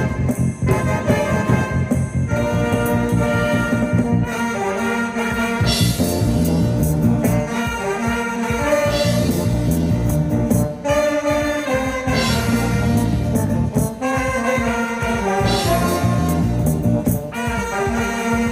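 Amateur ensemble playing a lively instrumental tune, a horn-like lead carrying the melody over bass and a steady beat.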